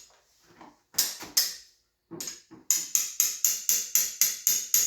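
Hand hammer striking a metal tool: a couple of single blows, then a quick steady run of about four blows a second in the second half, hammering to break loose a tight fastener.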